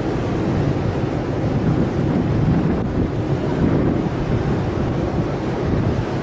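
Steady, uneven low rumble of wind buffeting the microphone, mixed with the wash of choppy harbour water.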